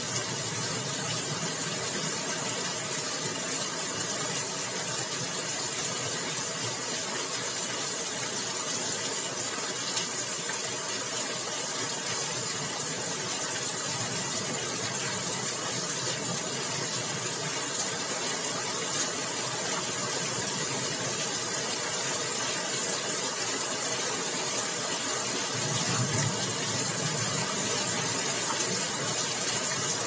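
Heavy rain falling steadily in a windy storm, an even hiss, with gusts of wind adding a low rumble now and then, strongest late on.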